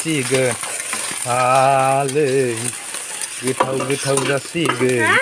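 Chopped potato and greens frying in oil in a kadai, sizzling, as a wooden spatula stirs and scrapes them around the pan. Over it a voice sings in long, wavering notes, three phrases in a row.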